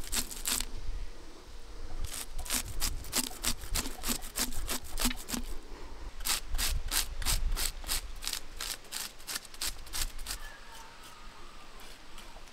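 Knife scraping the scales off a large fish in quick, repeated rasping strokes, about three a second, which die away about ten seconds in.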